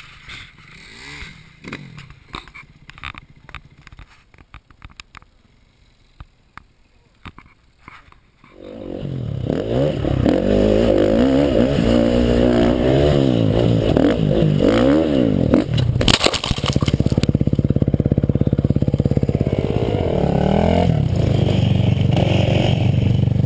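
Faint scattered clicks and knocks, then about eight seconds in a dirt bike's engine comes in loud, heard close from the rider's helmet camera. It revs up and down repeatedly, with a sharp knock around the middle, then runs on more steadily with another rev near the end.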